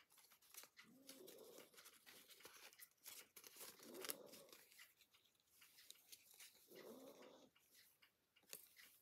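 Near silence, with a faint low animal-like call repeating about every three seconds and a few light handling clicks.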